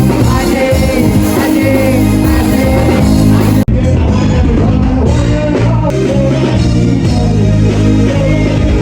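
Background music with a steady bass line and a singing voice, briefly cutting out a little past halfway before carrying on.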